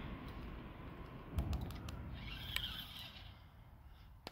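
Spinning reel being cranked under load while reeling in a hooked fish: irregular quick clicks and a mechanical rattle from the reel, with a low handling bump about a second and a half in. The sound fades toward the end.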